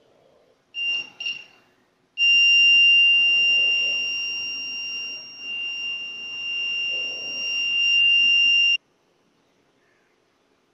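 The 5-volt buzzer of a homemade laser tripwire alarm (a 2N2222 transistor circuit) sounds as the beam is broken. It gives two short high beeps, then a steady high-pitched alarm tone for about six and a half seconds that cuts off suddenly.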